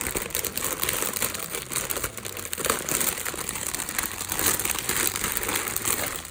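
Packaging crinkling continuously as it is handled and pulled open, a dense run of irregular crackles.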